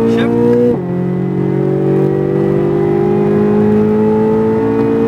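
Corvette Z06 V8 under full throttle. The engine note drops sharply on an upshift about a second in, then the revs climb steadily again in the next gear.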